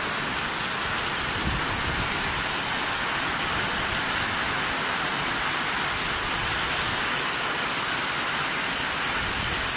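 Heavy rain pouring steadily onto a paved yard, an even, unbroken hiss.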